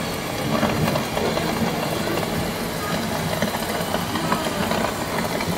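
Artificial rain spraying down over a miniature model town, a steady hiss of falling water, with a low steady hum underneath and faint voices of onlookers.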